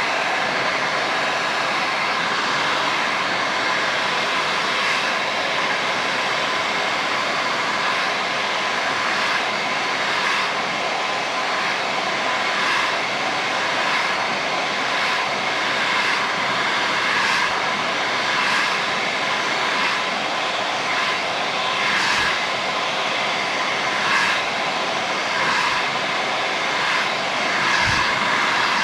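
Hair dryer running steadily: a constant rush of air under a steady motor whine, with a few brief knocks later on.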